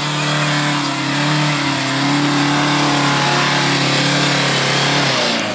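Tata Safari Storme 400's Varicor diesel engine held at high revs as the 4x4 climbs a muddy slope with its wheels spinning, over a loud steady hiss of churning tyres and flung dirt. About five seconds in the engine note and the hiss fall away as the SUV loses traction and bogs down just short of the top.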